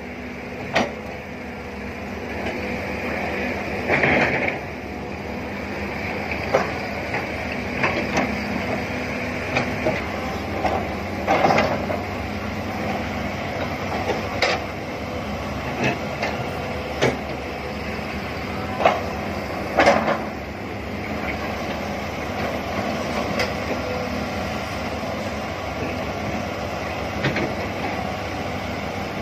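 Diesel engine of a John Deere hydraulic excavator running steadily while it digs and scoops earth, with irregular sharp clanks and knocks from the bucket and boom every second or two.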